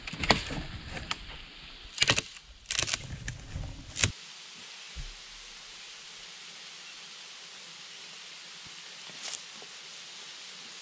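A dead branch dragged and handled through tall grass and brush close by: rustling with sharp knocks about two, three and four seconds in. It then stops suddenly, leaving a steady faint outdoor hiss.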